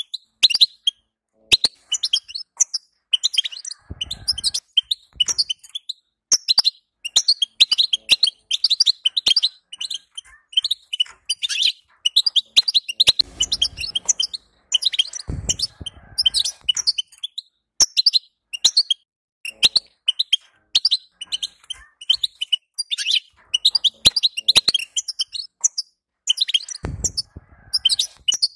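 European goldfinch twittering in fast, dense runs of chirps and trills: the 'betbeta' chatter that goldfinch keepers play to rouse a male to sing. A few low thumps sound at intervals.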